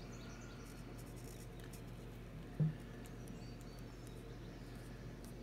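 Paint marker scratching faintly as it draws marks on the metal pinion shaft and housing of a steering rack, with a few small squeaks early on, over a steady low hum. A short dull thump comes about two and a half seconds in.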